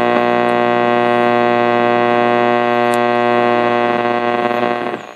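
Delco AM car radio putting out a steady, loud buzzing tone with many even overtones, held unchanged for about five seconds and cutting off suddenly near the end.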